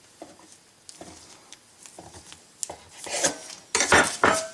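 Kitchen knife cutting through a ball of pizza dough on parchment paper: a few faint soft scrapes, then louder rustling and crinkling of the paper and dough being handled in the last second and a half.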